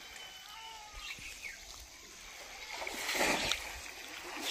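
Water splashing and sloshing as a person wades and gropes in a shallow pond, with a few louder splashes in the last second and a half.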